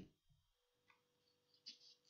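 Near silence, with a faint computer keyboard keystroke near the end.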